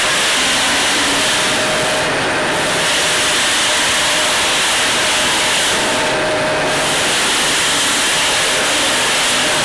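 Industrial sanding machine running, its abrasive grinding steel with a steady hiss that thins briefly twice in the highest range.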